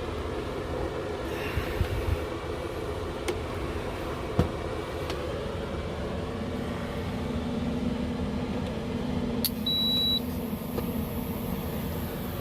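A few handling clicks and knocks, then a click and one short high beep as an induction cooktop powers up on an inverter, over a steady hum; a faint high whine carries on after the beep.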